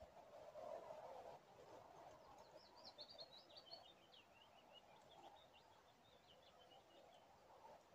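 Faint, high chirping of small songbirds, a quick run of short notes for a few seconds in the middle.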